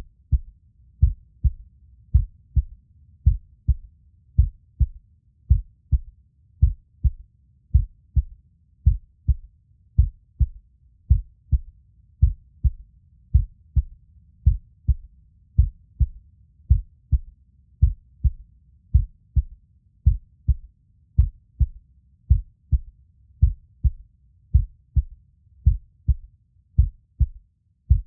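Heartbeat sounds: a steady, slow lub-dub rhythm of low thumps, paired beats about once a second, over a faint low hum.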